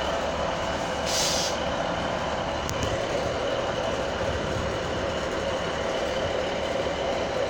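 Class 156 Sprinter diesel multiple unit standing with its underfloor diesel engines running, a steady drone with a steady whine over it. A short hiss of air about a second in.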